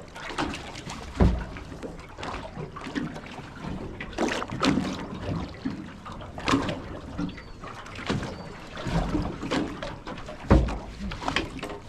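Water slapping and splashing against a small boat's hull, with scattered knocks and a few heavy low thumps, the loudest about a second in and near the end.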